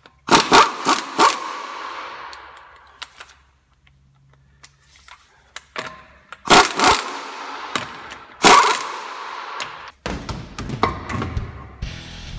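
Half-inch pneumatic impact wrench hammering lug nuts loose on a van's front wheel, in short rattling bursts: a cluster of several at the start, then two more about six and eight seconds in, each trailing off as the nut spins free. Near the end, knocks and a low rumble come in as the wheel is handled.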